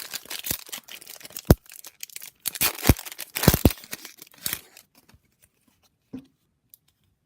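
Crinkling and tearing of a trading card pack's wrapper being ripped open, with several sharp snaps of the wrapper; it dies away about two thirds of the way through.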